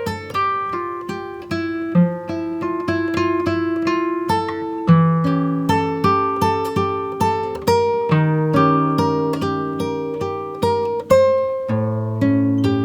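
Background music: acoustic guitar, picked notes at an even pace over bass notes that change every few seconds.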